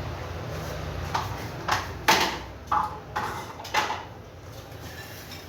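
Ground flaxseed being sifted through a hand sieve: a low rustling, then about five short scraping swishes between one and four seconds in as the sieve is worked.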